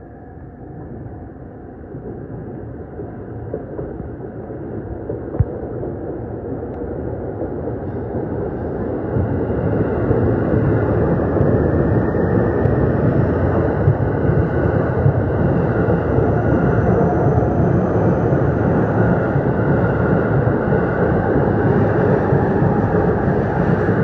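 E531 series electric train approaching and passing, its wheels rumbling on the rails. It grows louder over about the first ten seconds and then stays loud and steady as the cars go by.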